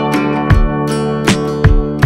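Background music led by strummed acoustic guitar, with regular sharp beats.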